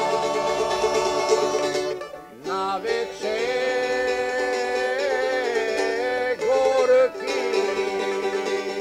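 Folk music played on plucked string instruments, in long held notes; the music breaks off briefly about two seconds in and again about seven seconds in.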